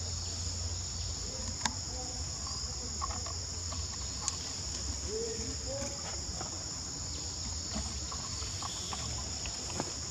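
Steady high-pitched drone of forest insects, with a low rumble underneath and a couple of sharp clicks about one and a half and four seconds in.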